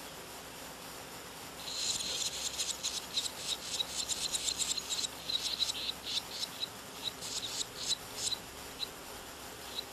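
Barn swallow nestlings begging as a parent arrives with food: rapid, high-pitched chirping that starts about two seconds in, thins to scattered chirps and stops a little before the end.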